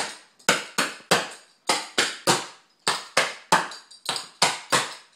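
Clogging shoes' taps striking a hard floor in repeated double steps. The sharp taps fall in short, even groups of about three, each group roughly a second apart.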